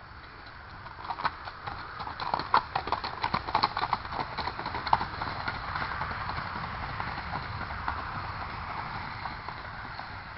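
Rapid, even hoofbeats of a keg-shod horse racing in a single-foot, the fast four-beat racking gait. They clatter loudest from about one to five seconds in, then blur into a steady rush that fades away.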